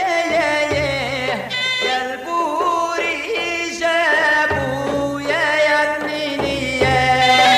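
Middle Eastern folk song: a singing voice or melodic line with a steady low bass note recurring about every two seconds.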